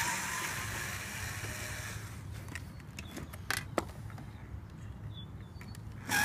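Cordless electric screwdriver running as it backs screws out of a metal junction box lid: its motor whirs up with a rising whine and runs for about two seconds, a few light clicks follow, and it whirs up again at the very end.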